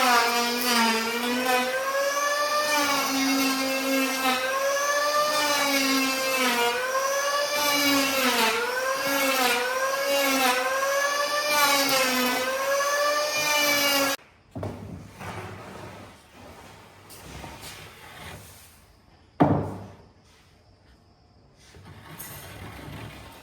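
A power tool working wood, whining at a pitch that rises and falls every second or two as it is loaded and eased off. It cuts off suddenly about 14 seconds in, leaving quieter clatter and one sharp knock a few seconds later.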